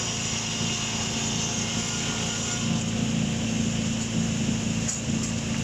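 Eight-saw log-squaring sawmill machine (СБР-8П-630) running steadily: its electric-motor-driven 630 mm circular saws spinning with a constant hum and a high hiss. Two short clicks near the end.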